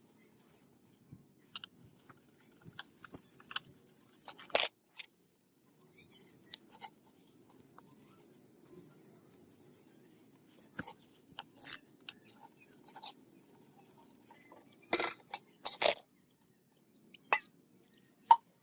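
Handling and working of rusty katana metal parts: scattered light clicks, clinks and scraping, with a few sharper knocks about four and a half seconds in and again around fifteen to sixteen seconds in.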